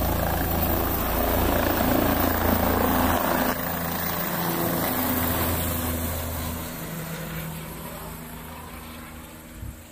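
Helicopter lifting off and flying away: the steady low rotor sound is loud at first, then fades over the second half as it climbs into the distance.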